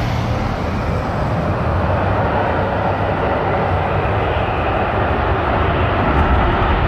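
Fighter jet taking off on afterburner: a dense, steady jet rush that grows slightly louder toward the end.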